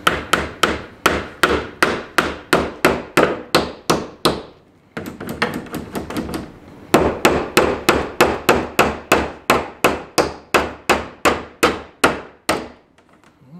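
Claw hammer driving 1.5-inch finishing nails into cedar fence-picket boards: quick repeated strikes, about three to four a second, with a short stretch of lighter taps in the middle.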